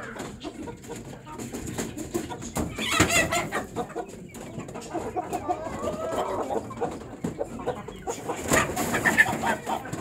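Aseel chickens clucking, with a louder call about three seconds in and another burst of louder calls near the end.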